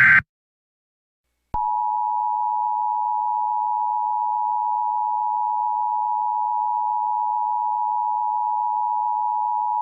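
The tail of an EAS SAME digital header burst cuts off, and about a second and a half later the Emergency Alert System two-tone attention signal (853 and 960 Hz) sounds steadily for about eight seconds. It is the alert tone that announces an emergency alert message.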